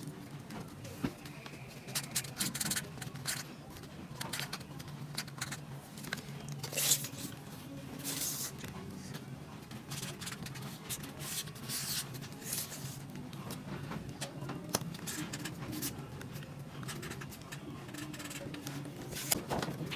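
Felt-tip marker drawing on corrugated cardboard: short scratchy strokes at irregular intervals, some longer runs of them in the middle, with light knocks and rustles as the cardboard and tape measure are handled.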